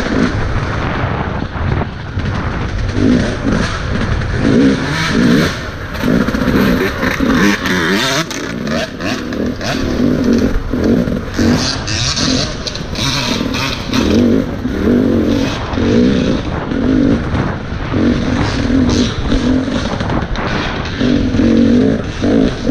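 Motocross dirt bike engine revving hard in surges, the pitch climbing and dropping again every second or so as the rider works the throttle and gears, over rushing wind and rattle.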